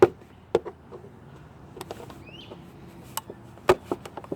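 A box cutter knife stabbing and punching into the wall of an empty sweet tea carton to cut out a hole: sharp knocks come one at the start and one about half a second in, then after a quieter gap a cluster of knocks and smaller clicks near the end.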